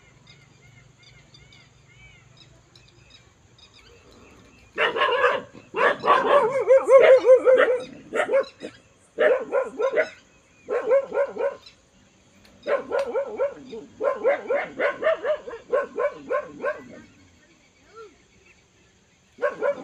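A dog barking in repeated runs of rapid barks, starting about five seconds in and breaking off briefly several times.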